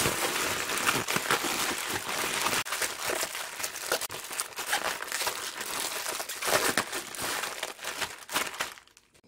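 A thin plastic kimchi-storage bag crinkling and rustling as gloved hands pull it tight, twist it and knot it shut, then press it down. The crackling stops suddenly near the end.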